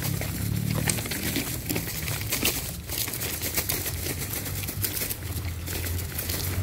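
Footsteps crunching irregularly on railway ballast and dry leaves, over a low steady rumble.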